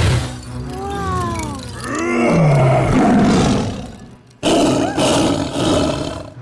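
A tiger-man cartoon villain's voiced roaring and snarling, swooping up and down in pitch, with a brief break about four seconds in before more growling.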